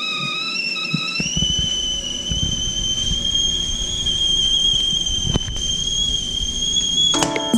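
Stovetop whistling kettle whistling at the boil as steam jets from its spout: a steady, high-pitched whistle that rises slightly in pitch about a second in and stops near the end.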